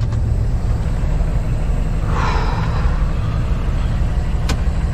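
Cummins ISX diesel of a Kenworth W900L running with a steady low rumble inside the cab as the truck pulls away. A brief hiss comes about two seconds in and a sharp click near the end.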